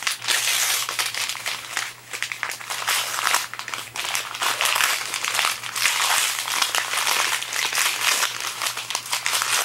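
Plastic packaging being handled and crinkled, a busy stream of crackles and rustles.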